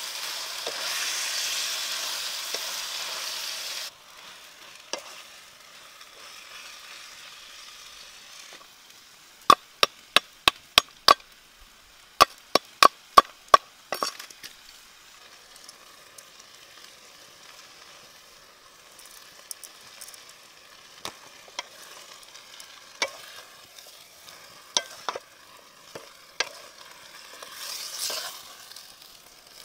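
Sliced banana stem sizzling as it is stir-fried in a wok over a wood fire. About ten seconds in comes a quick run of about fourteen sharp chops, a cleaver striking a wooden chopping block about three times a second in two bursts. Sizzling returns near the end.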